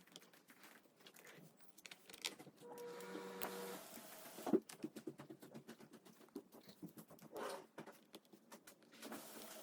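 Screws being driven back into the plastic bottom case of an Acer Aspire laptop: scattered small clicks and taps. There is a brief motor-like whir about three seconds in, and a sharper knock about a second later.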